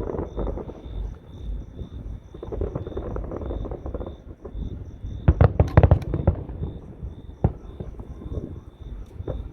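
Fireworks going off: a rapid cluster of sharp, loud bangs a little past the middle, then one more single bang about a second later. A steady pulsing insect chirp runs underneath.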